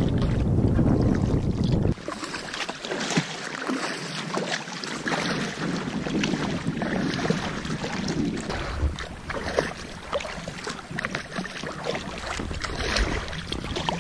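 Paddle strokes splashing and water lapping around an inflatable packraft on a choppy lake, with wind on the microphone. Heavy wind rumble fills the first two seconds, then cuts off suddenly to quieter, irregular splashing.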